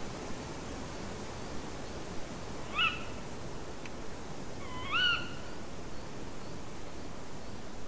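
Owl calling twice in the dark: two short calls sweeping upward in pitch about two seconds apart, the second longer, over a steady hiss.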